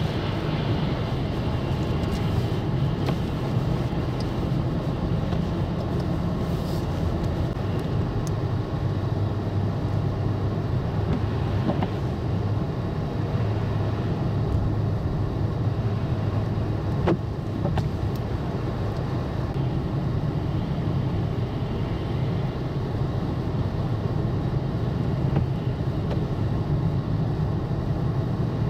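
Road traffic: a steady, unbroken low rumble of vehicle engines with road noise.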